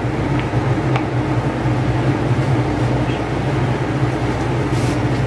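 Steady low machine-like hum over a noisy hiss, with a few faint clicks and ticks.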